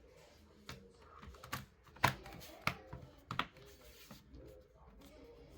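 Hands handling a laptop's plastic case and parts: a handful of sharp, irregular clicks and taps, the loudest about two seconds in.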